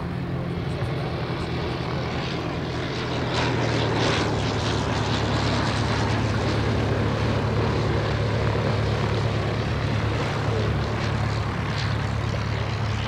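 Engine and propeller of a First World War rotary-engined fighter in flight, a steady drone that grows louder about three and a half seconds in as the aircraft comes closer.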